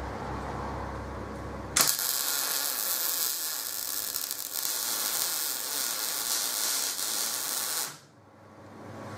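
Electric arc welder laying a tack weld: a steady hiss that starts abruptly about two seconds in and cuts off about six seconds later, after a low steady hum.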